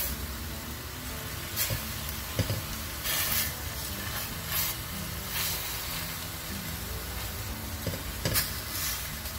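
Pieces of beef searing in hot lard in a stainless steel pot, sizzling steadily with swells as they are turned. Metal tongs click against the pot a few times.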